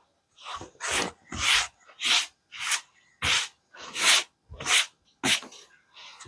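Repeated scraping or rubbing strokes, about nine in a row at a little under two a second, each starting with a light thump.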